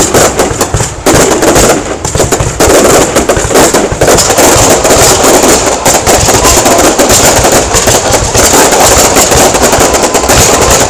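Aerial fireworks display going off in rapid, continuous succession: dense overlapping bangs and crackles, loud throughout.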